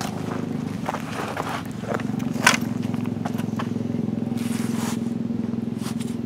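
Landing-net mesh scraping and rustling on an unhooking mat as it is pulled open, with a sharper scrape about two and a half seconds in. A steady engine hum runs underneath and grows a little louder about two seconds in.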